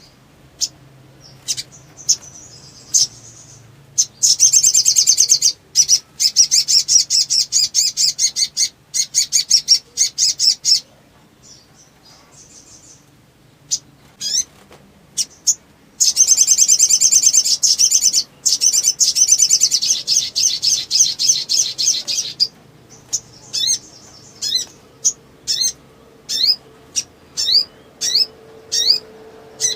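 A sogon (sogok ontong) songbird singing excitedly: long bursts of high, rapid chattering trills broken by single sharp notes. Near the end it changes to a run of short upward-sweeping chirps, about two a second.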